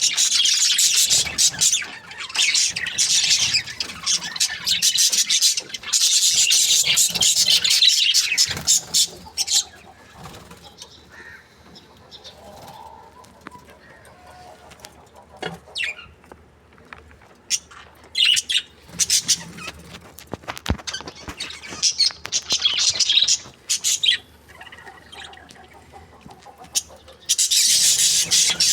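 Budgerigars chirping and chattering in rapid high-pitched bursts, loud for several seconds, then quieter with scattered short chirps, and loud again near the end.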